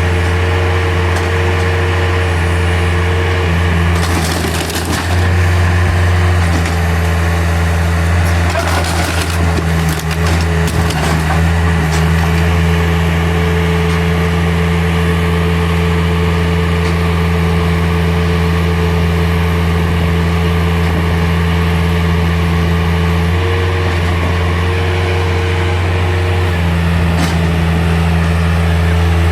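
Bobcat T140 skid steer's diesel engine running steadily under load while its grapple tears into a wooden structure, with wood cracking and splintering a few seconds in and again about ten seconds in.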